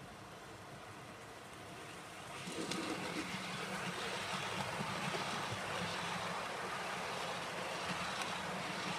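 Model train running on the layout's track, its motor hum and wheel rumble rising suddenly about two and a half seconds in as it approaches, then running steadily.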